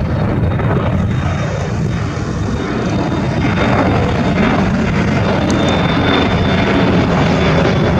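Jet airliner's engines running close by: a loud, steady rumble with a thin high whine on top, building a little louder about halfway through.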